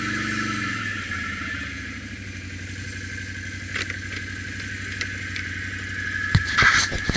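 ATV engine running at low speed on a dirt trail, its note dropping about half a second in as the throttle eases, then running on steadily. From about six seconds in, a series of sharp knocks and clatter sound over the engine.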